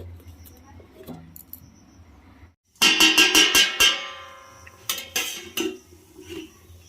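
Faint clinks of a spoon in a cooking pot, then a short burst of plucked-string music: a quick run of ringing notes, one note held, and a few more plucks.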